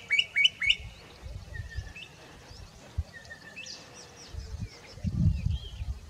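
Bokmakierie calling: a quick run of about five sharp whistled notes at the start, then fainter scattered calls. A low rumble comes in near the end.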